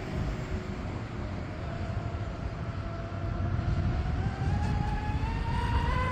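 High-pitched whine of an RC speed boat's twin Turnigy XK3674 2200kV brushless motors and propellers running at speed on 6S. The whine climbs steadily in pitch and grows louder over the last couple of seconds.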